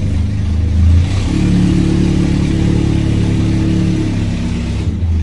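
Engine running steadily, rising to a higher pitch about a second in and dropping back near the end.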